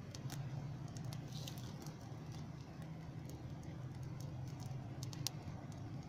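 Ember bed of an open wood fire crackling, with scattered sharp pops and a couple of louder snaps a little after five seconds, over a steady low hum.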